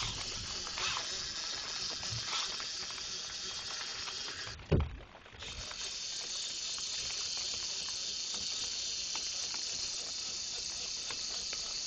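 Steady hiss of rain with the fine clicking of a fishing reel ratcheting as a big striped bass is fought. A single thump comes about five seconds in, after which the sound briefly drops out.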